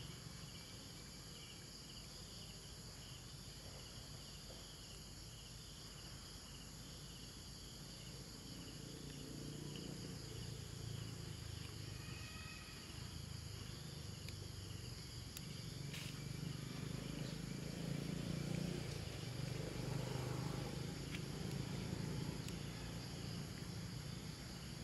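Chorus of insects, several high steady tones together, one of them pulsing about one and a half times a second, over a low rumble that grows louder in the second half.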